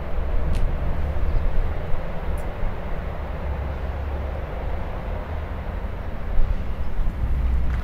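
Steady low rumbling background noise with a faint hiss, and a couple of faint clicks.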